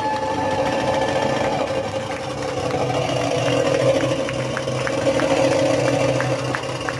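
Belly-dance drum solo played as a continuous drum roll, with sharp taps standing out from about halfway through.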